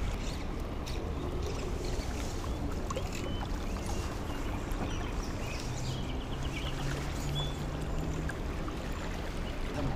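River current running past a drifting boat, an even rushing noise with a low rumble.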